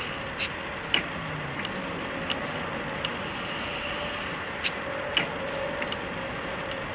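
A scattering of short, sharp clicks and knocks, irregularly spaced, as the propeller of a 145 hp Warner seven-cylinder radial engine is pulled through by hand to push compression out past a leaking exhaust valve. A steady hiss and a faint steady hum run underneath.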